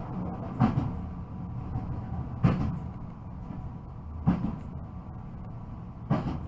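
Newag Impuls electric multiple unit running, heard from the driver's cab: a steady low rumble with a sharp wheel clack about every two seconds as the wheels cross rail joints.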